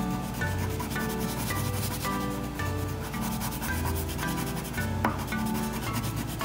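A wax crayon in a twist-up plastic barrel scribbling on paper in rapid back-and-forth strokes, colouring in an area. Soft background music with a repeating bass note plays underneath.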